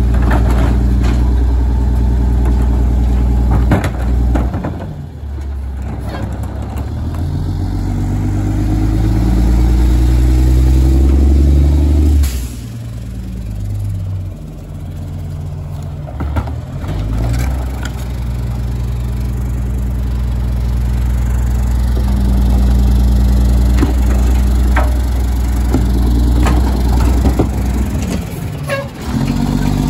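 Mack LE garbage truck's diesel engine running, throttling up and down as the Heil rear loader works its hydraulic packer: the engine climbs in pitch for several seconds, drops off suddenly, then climbs again. Plastic recycling carts clack against the hopper now and then.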